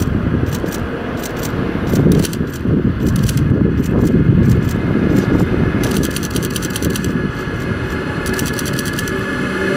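A long train led by an Amtrak ACS-64 electric locomotive approaching and rolling in, a steady rumble of wheels on rail with many sharp clicks and ticks scattered through it.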